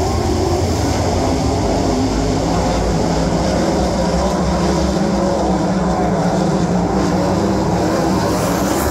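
A field of winged sprint cars racing on a dirt oval: many engines at high revs blending into one loud, steady drone.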